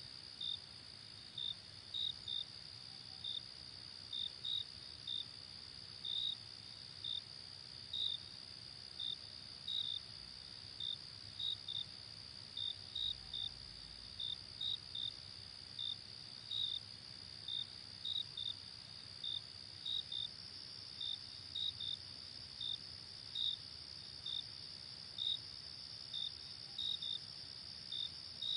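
Night crickets: short high chirps about twice a second over a steady, continuous high-pitched insect trill.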